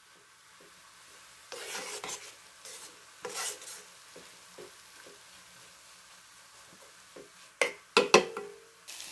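A spatula stirs and scrapes sautéed broccoli rabe and peppers around a stone-coated nonstick pan over a faint steady sizzle, with scraping swishes early on. Near the end come a few sharp knocks of the spatula against the pan.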